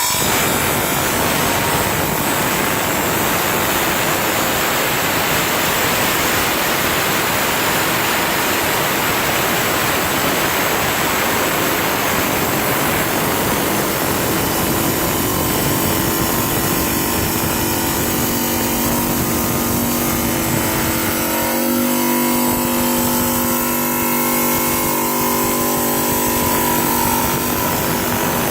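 Rubi DC-250 wet bridge tile saw's diamond blade cutting an Indian sandstone paving slab, a loud, steady grinding hiss. About three quarters of the way through the grinding eases, and the saw's steady motor whine comes through as the blade spins on.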